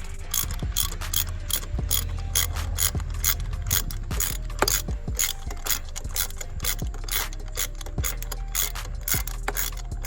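Socket ratchet clicking steadily, about three clicks a second, as a 5/8-inch spark plug socket loosens and backs out a spark plug.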